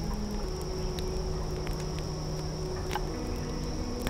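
Steady chorus of insects trilling: a constant high-pitched chirr, with a few sharp clicks about a second and three seconds in.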